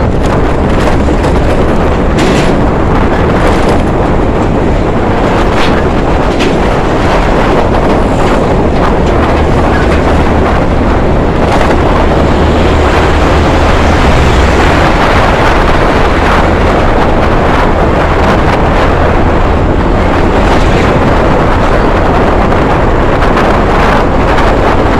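Steady rush of wind and road noise from a moving Honda BeAT scooter, with a deeper rumble swelling around the middle as a truck passes close by.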